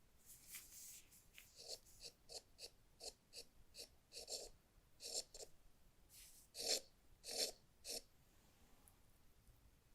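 A quick, uneven run of about fifteen short rubbing or scratching sounds, with the loudest few near the end of the run.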